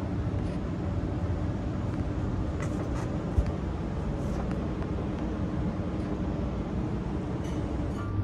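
Steady low outdoor rumble with a faint hiss, and a single thump about three and a half seconds in.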